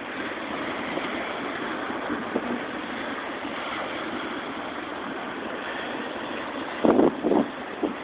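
Rough, wind-driven lake water washing and breaking against a rocky shore with a steady rush of wind. About seven seconds in, two loud bursts of wind buffet the microphone.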